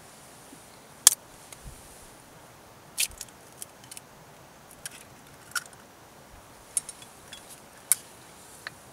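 Eggs frying in a thin metal camp pan over a gas-cartridge stove: a faint sizzle under scattered sharp pops and crackles, about one every second or so. A second egg is cracked and dropped into the pan near the middle.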